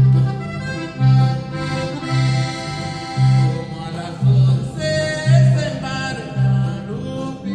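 A norteño-style band tune: accordion playing a melody over electric bass notes that land about once a second.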